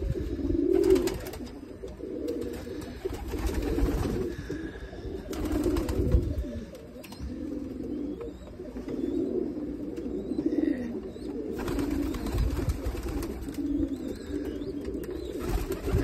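A flock of domestic pigeons cooing over one another in repeated low calls, with now and then a rush of wing flapping.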